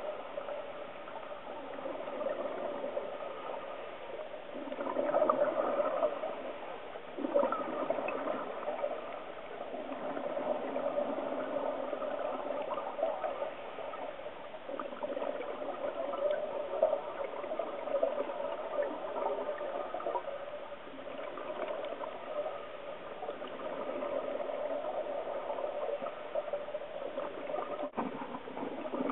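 Scuba divers' exhaled regulator bubbles gurgling underwater, with louder bursts of bubbles about five and seven seconds in.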